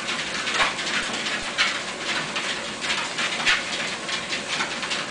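Dachshunds on a running treadmill: a steady hiss with short, irregular scratchy sounds about once or twice a second.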